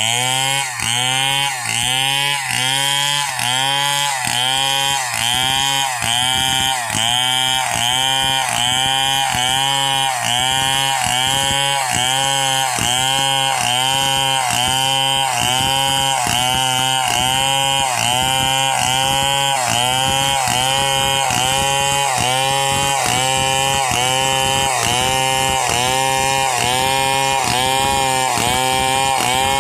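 STIHL chainsaw at high revs ripping lengthwise through a squared log, its engine note dipping and recovering in a steady rhythm, about three times every two seconds, as the chain bites along the grain.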